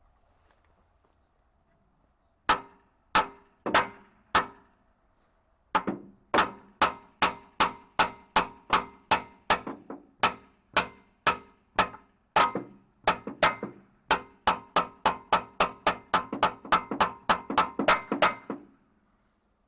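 Hammer blows on metal, each ringing briefly: four spaced strikes, then a long steady run of about two blows a second that comes a little faster near the end.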